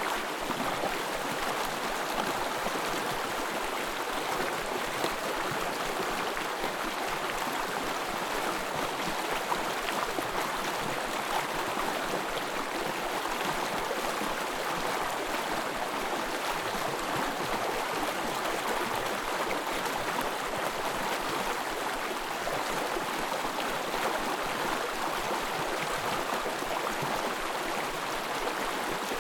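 Small forest brook flowing: a steady, even babble of running water.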